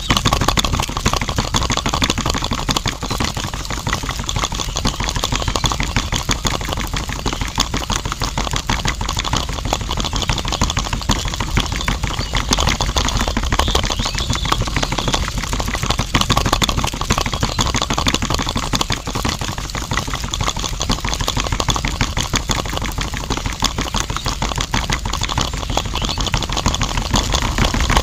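Small motor running steadily, with a fast, even rattling clatter from the gearing as it turns the drum of a miniature DIY concrete mixer.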